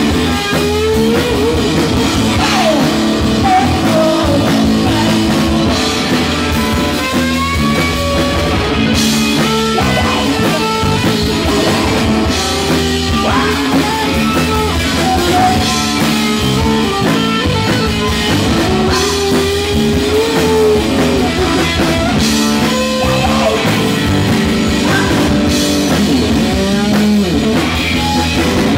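Rock band playing live and loud: electric guitar, bass guitar and drum kit, with gliding, bending lines over the steady band.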